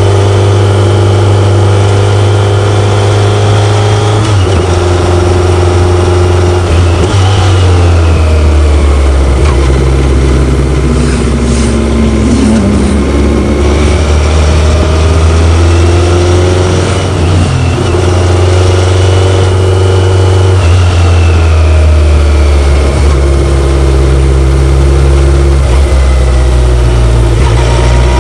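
BMW K1100LT's inline-four engine running under way, its note stepping down and rising again several times as the revs change.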